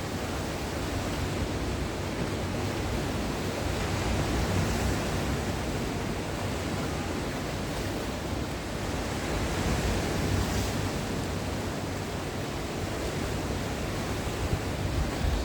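Sea waves breaking on the shore, a continuous wash of surf that swells a little louder twice.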